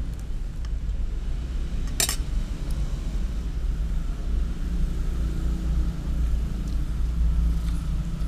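A steady low rumble runs throughout. About two seconds in, a metal spoon gives a single sharp clink against a glass plate, with a few faint utensil ticks around it.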